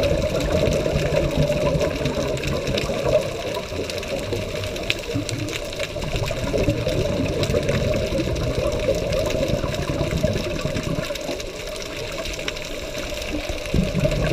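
Muffled underwater sound picked up through a GoPro's waterproof housing: a steady low rumble mixed with water noise, easing a little about two-thirds of the way through and building again near the end.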